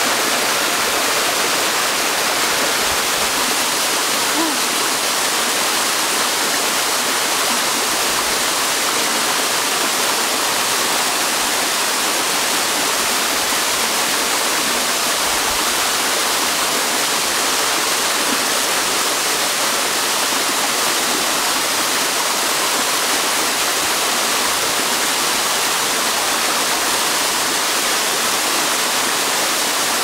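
Steady rush of a waterfall.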